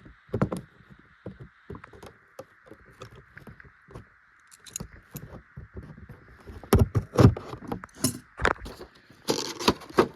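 Stiff plastic blister packaging and cardboard crackling and clicking as a boxed action figure is worked loose and pulled out. Irregular handling sounds run throughout, with louder cracks and rustles about seven seconds in and near the end.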